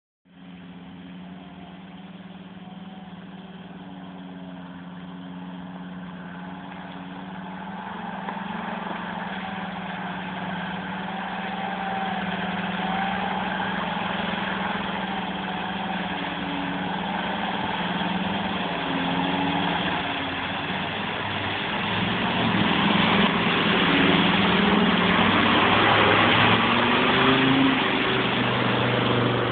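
An off-road vehicle's engine running, growing steadily louder, with its pitch wavering more in the last third.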